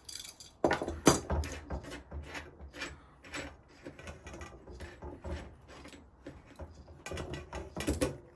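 Irregular metallic clicks and rattles from a grimy 1992 Shimano Deore DX rear hub being handled and turned by hand. Its bearings and freehub are worn and rattly, with a lot of play.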